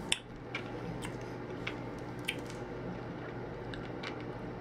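Quiet wet mouth clicks and smacks from hard candy being sucked, with several short sharp clicks scattered through, over a faint steady hum.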